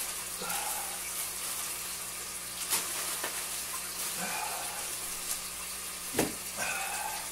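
Steady hiss of running, trickling aquarium water under a low steady hum, broken by two sharp knocks, a little under 3 s in and again about 6 s in.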